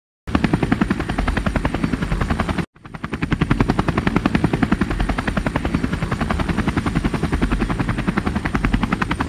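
Helicopter rotor chopping in a rapid, even beat with engine noise beneath. It cuts out for a moment at the start and again about two and a half seconds in, then fades back up.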